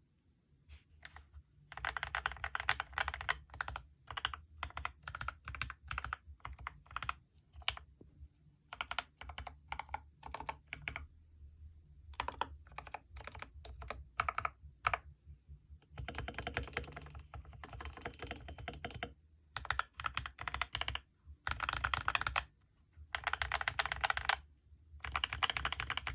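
Typing on a Geek GK61 60% mechanical keyboard with Gateron Optical brown switches, lubed with Krytox 205g0 and fitted with switch films. It comes in bursts of fast keystrokes a few seconds long, separated by brief pauses.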